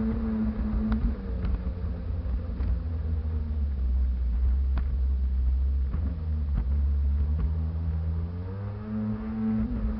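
Sea-Doo jet ski engine running under way, its pitch easing down about a second in and climbing back up near the end, over a heavy low rumble with a few sharp taps.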